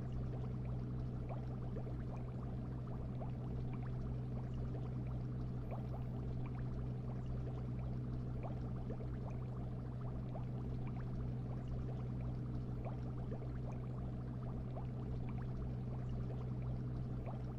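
Fish-tank ambience: a steady low hum, like an aquarium filter pump, with constant light bubbling of many small ticks and pops.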